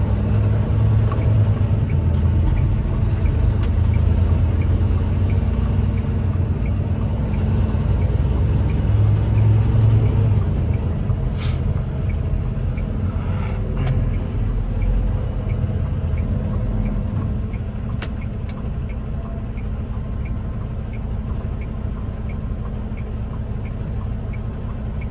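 Semi-truck diesel engine rumbling in the cab while driving, growing quieter about halfway through as the truck slows for a traffic light. A faint regular ticking runs underneath.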